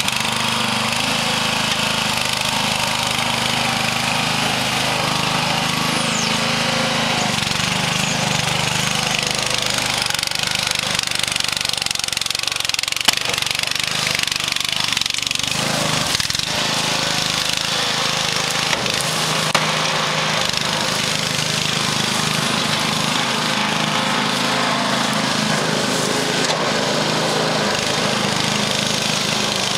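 Small petrol engine of a powered wheelbarrow (muck truck) running steadily as it hauls a load of dirt over rough ground, with two short knocks in the middle.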